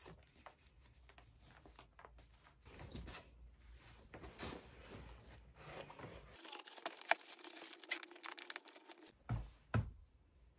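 Faint rustling and scuffing of canvas high-top sneakers and their laces being pulled and handled, with two soft thumps near the end.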